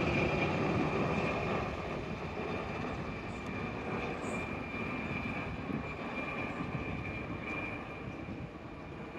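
Helicopter flying by, its engine and rotor noise with a faint high whine, slowly fading as it moves away.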